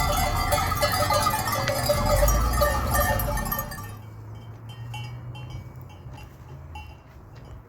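A flock of sheep bleating over one another with bells clanking. About four seconds in the bleating stops, leaving a livestock bell clanking in short repeated strokes.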